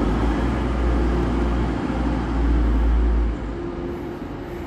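Diesel engine of a TransPennine Express Class 185 multiple unit running at the platform. A deep rumble sits under it and falls away about three and a half seconds in.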